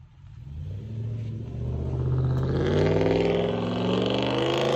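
1998 Ford F-150's Triton V8, on straight-piped dual exhaust with shorty headers, accelerating hard from a pull-away. The exhaust note climbs steadily in pitch, grows much louder over the first two seconds, and then stays loud.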